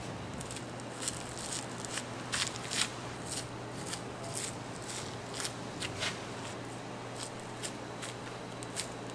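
A knife cutting raw beef rib meat during trimming, a run of quick, irregular, crisp slicing strokes, several a second at times. A steady low hum runs underneath.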